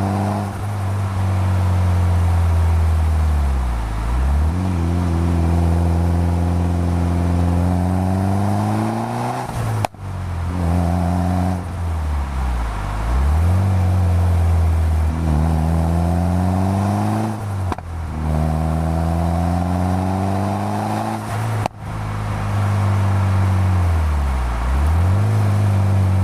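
Mitsubishi Lancer Evolution V's turbocharged 2.0-litre four-cylinder through a straight-pipe exhaust, its revs repeatedly dropping sharply and climbing again as the car is driven hard. The sound breaks off abruptly three times.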